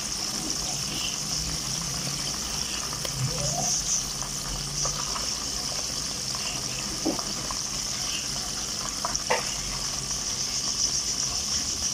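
Batter-coated chicken pieces deep-frying in hot oil: a steady sizzle, as a slotted spatula turns the pieces over halfway through cooking.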